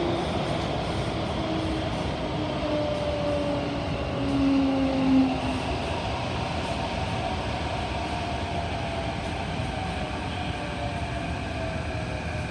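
SMRT CT251 metro train running, heard from inside the carriage: a steady rumble with a faint motor whine whose pitch glides slowly downward.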